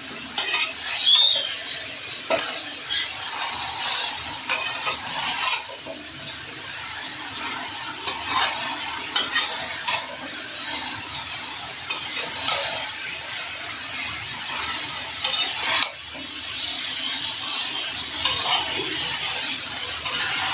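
Metal spatula stirring and scraping chopped sponge gourd in a metal kadai, knocking against the pan at irregular intervals, over a light sizzle of onions and turmeric frying in oil.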